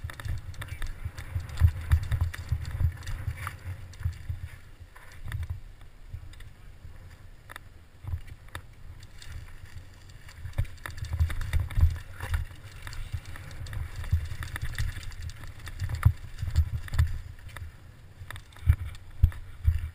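Giant Faith 2 downhill mountain bike rattling and knocking over a rocky dirt trail at speed, with a low rumble of wind buffeting the microphone. Sharp knocks come at irregular intervals as the wheels strike rocks and ruts.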